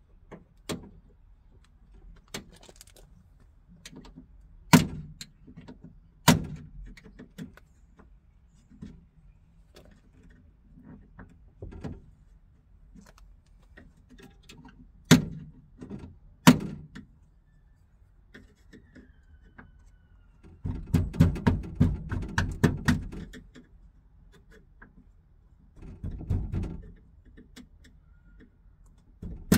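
Old window-frame clips being prised out of a Fiat 126 BIS door's window channel by hand: several sharp snaps, and two spells of rapid scraping and rattling, the longer one about two-thirds of the way through and a shorter one near the end.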